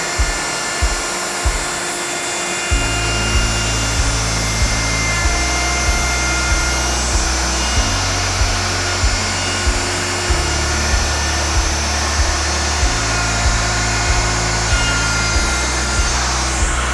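Handheld router running steadily while routing the edges of a panel. Background music with a steady beat comes in about three seconds in.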